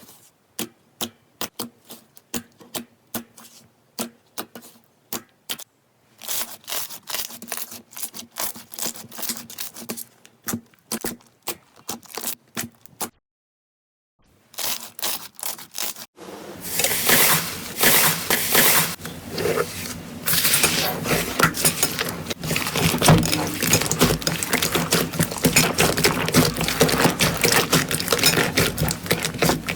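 Slime being pressed and worked by hand, making sharp clicks at first, then, after a brief silence about halfway, a loud dense crackling and crunching to the end.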